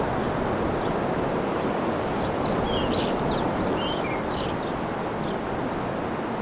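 Steady rush of a breeze through palm fronds. From about two seconds in, a small bird chirps a quick run of short, high notes for about three seconds.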